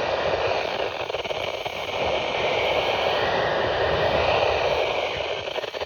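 Steady static hiss from a weather radio receiver with no clear voice, as a weak, distant NOAA Weather Radio signal fades in the noise.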